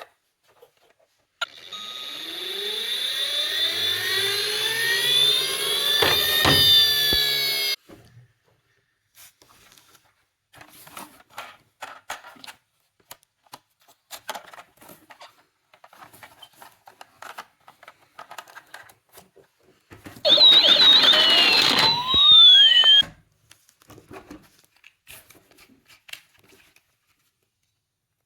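Electronic siren sound effects from toy emergency-vehicle mini cars: several overlapping wailing tones that rise and fall for about six seconds, with a sharp click near the end, then faint clicks and rattles of the toys. About twenty seconds in comes a second, shorter siren wail that cuts off suddenly.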